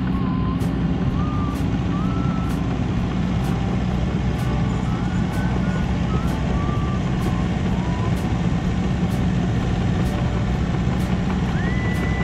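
Crawler bulldozer at work, its diesel engine running steadily at a constant pitch.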